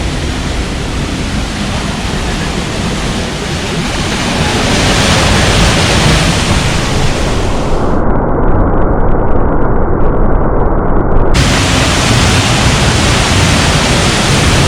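Waterfall close by: falling water making a loud, steady rushing noise that swells about four seconds in. For about three seconds in the middle the high hiss drops out, leaving only the low rumble, then it returns.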